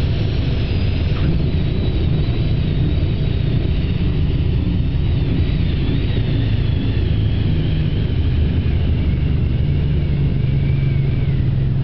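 Velocity canard pusher aircraft heard from inside the cockpit during landing: a steady, loud low drone of engine and airflow, with a faint thin whine that slowly falls in pitch.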